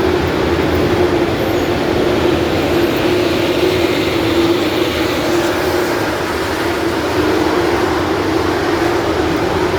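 Asphalt milling machine running steadily as it works the road surface: a loud, even mechanical drone with a constant hum.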